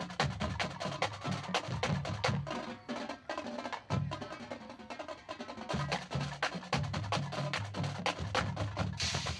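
Drum corps drumline playing a fast percussion passage: rapid snare and tenor strokes over pitched bass drum runs, with cymbals coming in near the end.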